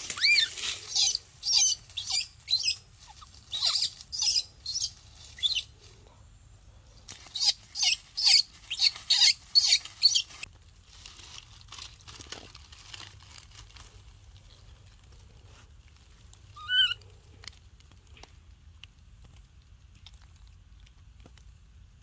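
Dry fallen leaves crackling and crunching underfoot in quick bursts, a short gap about six seconds in, then stopping after about ten seconds. Near the three-quarter mark a single short high squeak rises and falls.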